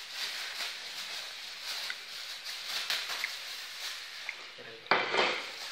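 Ripe kepok bananas being squashed and kneaded by a hand in a thin plastic glove, with the glove's crinkling rustle. Near the end a brief, loud voice sound breaks in.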